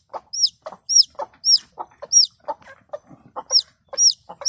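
Newly hatched chick peeping, sharp high calls that fall in pitch, about two a second, with a broody hen clucking low in between.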